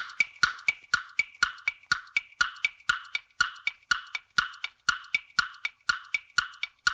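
Quiz countdown-timer sound effect: an even wood-block tick-tock at about four ticks a second.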